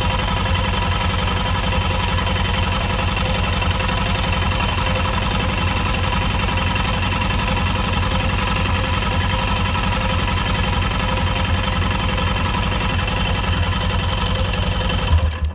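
Yamaha XT660Z Ténéré's single-cylinder engine idling steadily, then switched off, cutting out suddenly near the end.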